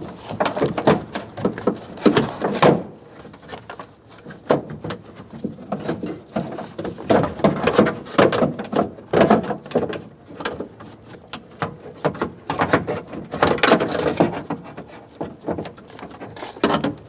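Irregular plastic and metal clicking, knocking and rattling of hands working a car's front door lock actuator and its lock cables loose inside the door shell.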